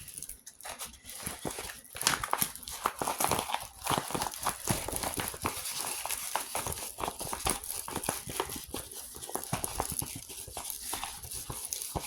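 Packaging crinkling and rustling as a diamond painting kit is unwrapped and handled: a dense run of small crackles and clicks.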